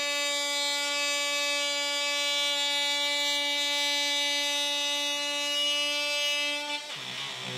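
DeWalt cordless power tool cutting through drywall: a steady, high motor whine with a buzzing edge that holds one pitch, then stops near the end.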